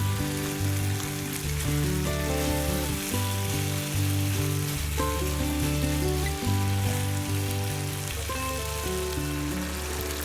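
Food frying in a pan, an even sizzle, under background music with held notes and a changing bass line.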